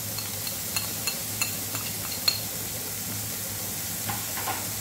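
Sliced onion, capsicum and carrot sizzling lightly in a nonstick frying pan while a wooden spatula stirs, with a few sharp clicks and taps against the pan and spice dish, the loudest about two seconds in. A steady low hum runs underneath.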